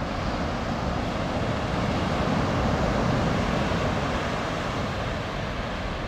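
Ocean surf washing in, a steady rushing that swells about two seconds in and eases off again.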